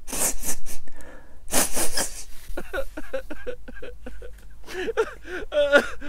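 Someone crying: two loud, wet sniffles in the first two seconds, then short, wavering sobs.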